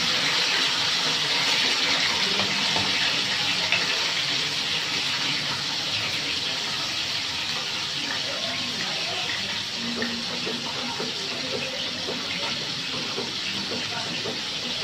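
Coconut milk boiling in a wide metal pan, a steady hiss of bubbling.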